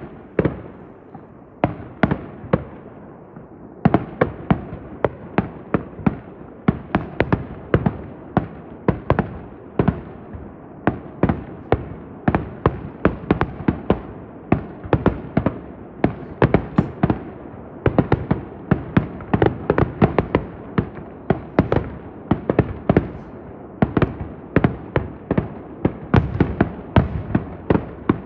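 Fireworks finale: a rapid, unbroken barrage of aerial shell bursts, several sharp bangs a second, over a continuous rumble, opening with one loud bang.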